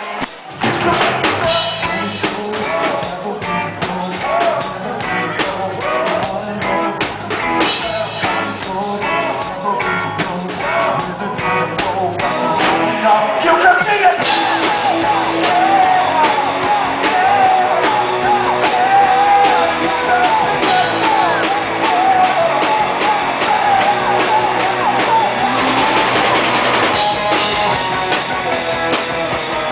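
Rock band playing live: electric guitar and a singer, with the full band coming in loudly about half a second in.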